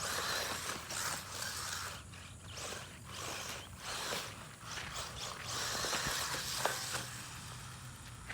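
Traxxas 1/16 Slash electric RC truck driving over rough construction-site ground, its tyres and drivetrain making a hissing, whirring rattle that swells and fades in three runs.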